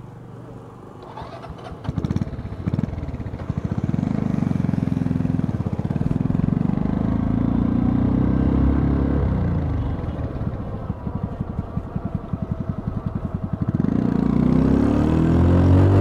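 CrossFire Korak 125's single-cylinder engine running under way, heard onboard: quieter for the first couple of seconds, then picking up revs, easing off to a low pulsing beat past the middle, and revving higher and louder again near the end.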